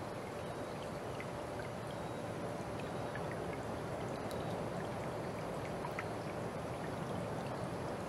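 Small forest stream flowing and trickling steadily, with scattered faint high ticks and a faint steady tone underneath.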